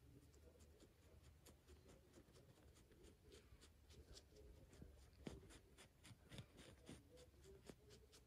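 Faint soft dabbing and rubbing of a folded gauze pad held in steel tweezers against wet skin: a string of small scratchy clicks that come thicker in the second half.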